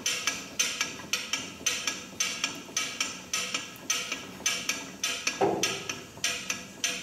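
Even, sharp ringing ticks, about two a second, each dying away before the next, with one short lower knock a little past five seconds in.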